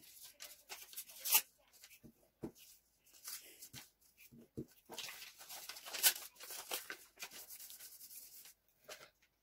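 Paper rustling and crinkling as scrap-paper strips are rubbed with a glue stick and pressed down by hand, in short irregular rustles with a louder one about a second in and another past the middle.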